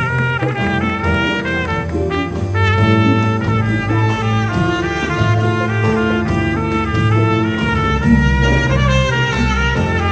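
Big band jazz orchestra playing, with the brass section of trumpets and trombones sounding sustained chords over bass notes and a cymbal keeping steady time.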